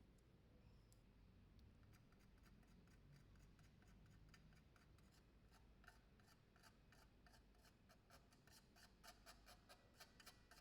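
Faint rapid scraping clicks, as of small hand-tool work on a hard part, coming thicker and a little louder in the second half.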